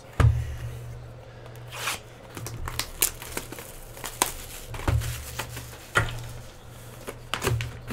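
Plastic shrink wrap being torn and crinkled off a sealed trading-card hobby box, with irregular sharp crackles. There is a thump about a quarter second in, as the cardboard box is handled.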